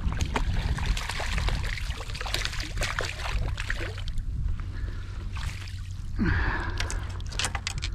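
Water splashing and trickling beside a kayak as a small redfish is brought in on the line, with scattered clicks and splashes over a steady low rumble.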